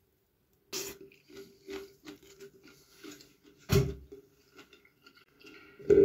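Food being handled on a plate: scattered small knocks and rustles, with one louder short thump a little under four seconds in.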